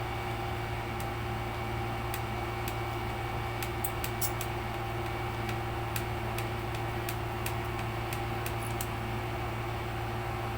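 Faint, irregular small clicks of a screwdriver undoing the small screws of a laptop's case, over a steady electrical hum.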